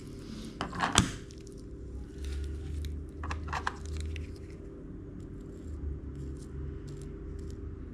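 Scissors snipping through a jack mackerel's belly wall: one sharp snip about a second in, a few quicker snips a couple of seconds later, then faint ticks, over a steady low hum.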